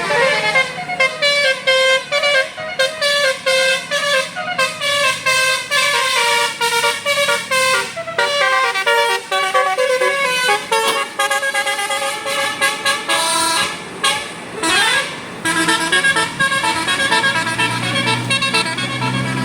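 Bus's multi-tone Basuri telolet horn playing a fast melody of short, changing horn notes, with a rising glide about fifteen seconds in. A low rumble comes up near the end.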